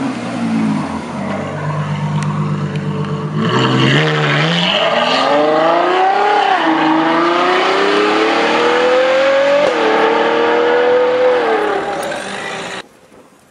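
Ferrari FF's V12 engine running low and steady, then revving hard as the car pulls away. Its pitch climbs, drops sharply at a gear change about six seconds in, climbs again and falls away, and the sound cuts off near the end.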